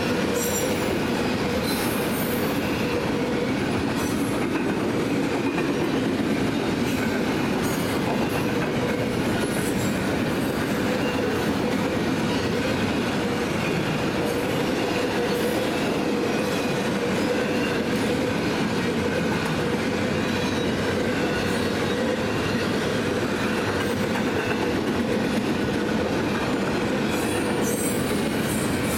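A double-stack intermodal freight train rolling past at speed: a steady rumble and rattle of wheels on rails, with brief high-pitched squeals now and then.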